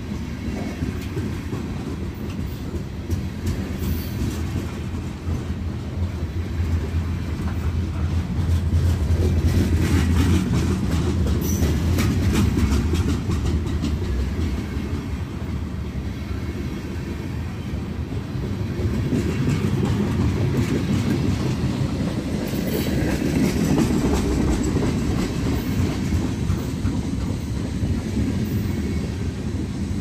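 A freight train of hopper cars rolling past close by: a steady heavy rumble with steel wheels clacking over the rail joints, swelling louder twice as cars go by.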